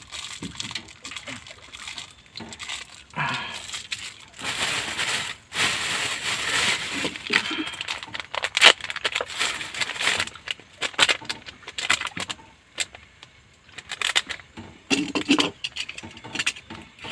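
Crinkling of a thin plastic packet being handled and torn open, for several seconds in the first half, followed by scattered light clicks and knocks.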